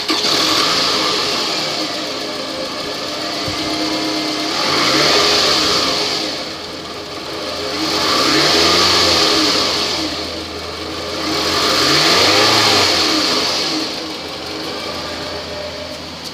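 2008 Toyota Camry's 2.4-litre 2AZ-FE four-cylinder engine running freshly started. It is revved three times, each rise and fall lasting about two seconds, and settles back toward idle in between.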